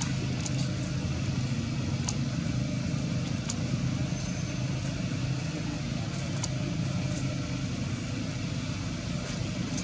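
Steady low rumble of background noise with a few faint short clicks spaced through it.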